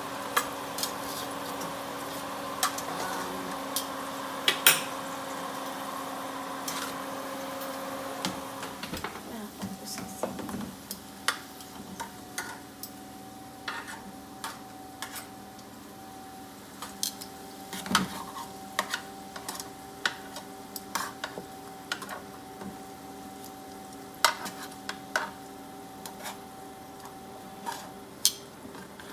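Roast potato pieces being turned with a utensil on a hot oiled roasting tray: many scattered clinks and scrapes of metal on the pan over a faint sizzle. A steady hum runs underneath and changes pitch about nine seconds in.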